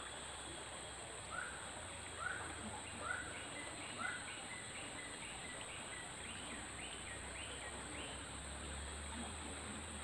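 A bird calling: four slurred whistled notes a little under a second apart, then a quicker run of a dozen short, higher notes. A steady high insect buzz runs underneath.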